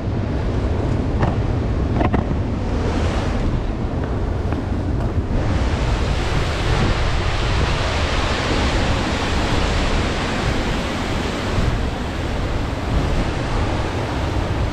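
Wind buffeting the microphone over the steady rushing of Upper Yosemite Falls. The rushing grows louder about five seconds in and eases back around twelve seconds.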